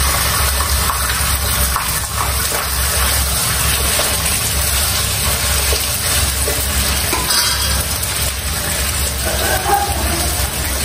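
Raw meat pieces sizzling in a hot steel kadai on a gas burner: a steady hiss over a low rumble.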